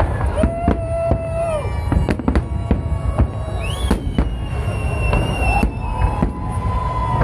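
Fireworks salute: aerial shells bursting in quick succession, sharp bangs about two or three a second over a continuous low rumble, with a few long held tones sounding above them.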